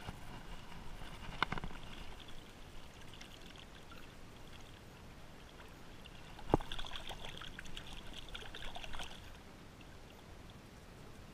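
Shallow water lapping and trickling among shoreline rocks, with fine crackling splashes. There is one sharp knock about six and a half seconds in.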